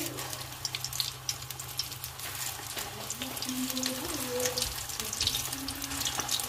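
Potato-and-poha cutlets deep-frying in hot oil in a kadai: a steady sizzle full of small crackling pops as fresh cutlets are slid into the oil.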